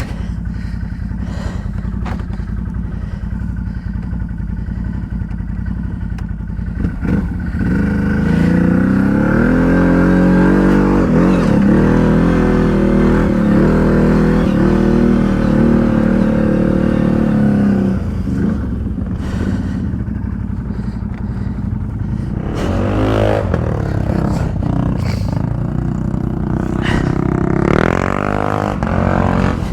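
ATV engine running, then revving hard under load for about ten seconds from around seven seconds in as the quad is driven over rough ground, with two shorter bursts of revs near the end.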